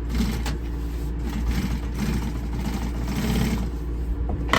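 Industrial walking-foot sewing machine stitching in short runs over its motor's steady hum, with a sharp click near the end.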